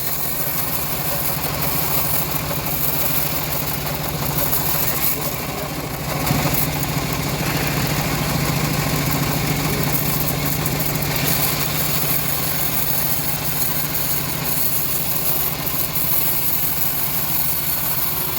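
Engine-driven homemade bandsaw mill running steadily at a constant pitch, with a hiss over the engine hum; a little louder from about six seconds in.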